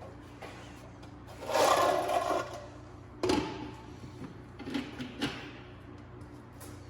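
Engine parts being pulled out of an engine bay by hand: a scraping, rustling rub of a little under a second, then a sharp knock and two lighter knocks a couple of seconds later.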